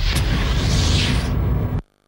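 A loud rumbling, whooshing sound effect on a car commercial's closing logo, with a hiss on top that fades after about a second. It cuts off suddenly to silence near the end.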